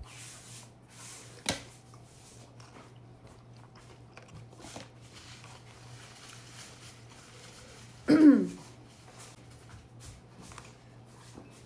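Soft chewing and mouth clicks while eating dumplings, over a faint steady hum. A sharper click comes about a second and a half in, and a short, loud vocal sound falling in pitch about eight seconds in.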